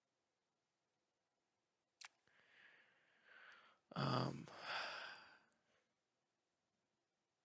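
A person sighs. After a sharp click, a breath is drawn in and then let out as a long sigh that starts with a brief low voiced 'um'.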